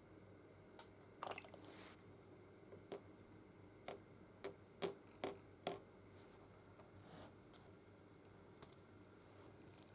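A series of light clicks and taps, about seven of them between one and six seconds in, over quiet room tone.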